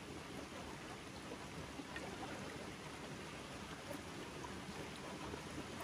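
Steady rush of water from a shallow rocky stream flowing over stones.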